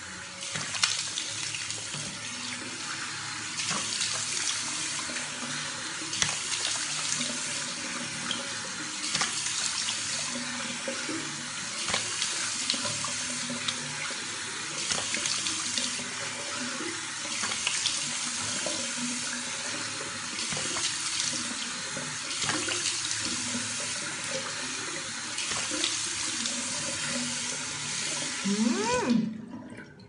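Tap water running into a sink while a face is rinsed with plain water, hands splashing water up in surges every second or two to wash off facial soap lather. The water cuts off suddenly near the end.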